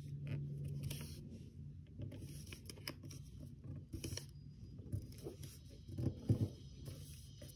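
Sheet of 80 gsm origami paper rustling and scraping as it is folded over and a hand presses and slides along the crease against the tabletop, with a few sharper clicks and taps about six seconds in. A faint steady low hum sits underneath.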